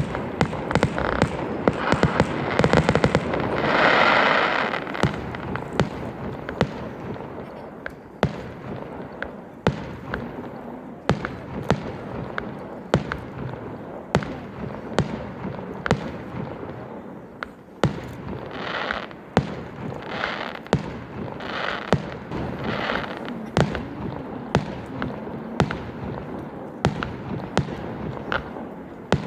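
Fireworks going off: an irregular string of sharp bangs and crackles throughout, with a loud hissing swell about four seconds in and several shorter hisses later on.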